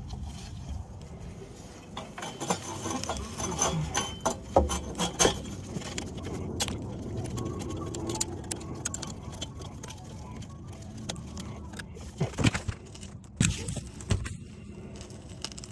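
Irregular metallic clinks, knocks and rattles of exhaust parts and a clamp being handled and fitted together by hand while connecting a new muffler to the exhaust pipe, with a cluster of sharper knocks near the end.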